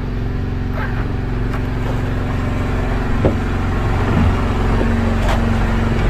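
Engine running steadily aboard a fishing boat, an even drone with no change in speed, with a couple of faint knocks about three and four seconds in.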